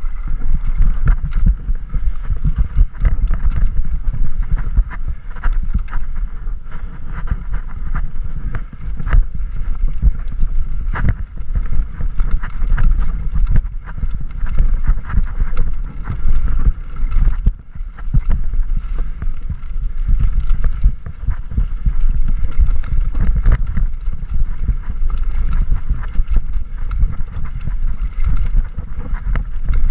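Wind rushing over the microphone of a camera mounted on a mountain bike descending a dirt trail, with constant rattling and knocks from the bike over rocks and roots.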